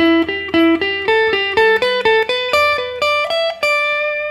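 Stratocaster-style electric guitar playing a G major pentatonic scale sequence in eighth-note triplets, single picked notes climbing up the neck at about four or five a second. It ends on a note left to ring.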